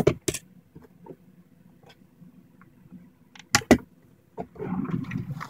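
Utility knives being handled and set down on a tabletop: two sharp clacks near the start and two more about three and a half seconds in, followed by about a second of rustling.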